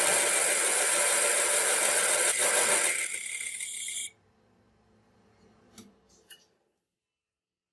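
Metal lathe turning a brass hex nut while a tool bit cuts its bore: a loud, steady cutting hiss that stops abruptly about four seconds in. Two faint clicks follow before silence.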